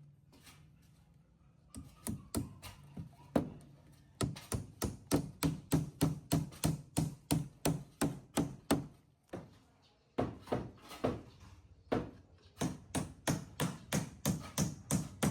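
Repeated sharp blows, about three a second, in two runs with a short pause about nine seconds in.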